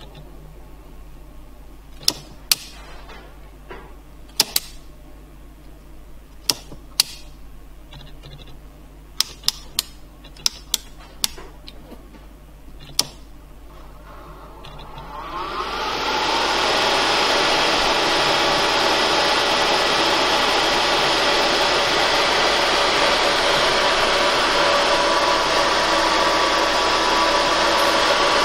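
Scattered sharp clicks over the first half, then a cooling fan spins up about halfway through, rising in pitch for a second or so and then running steadily and loudly as the bench supply delivers about 12.7 amps at 12 volts DC.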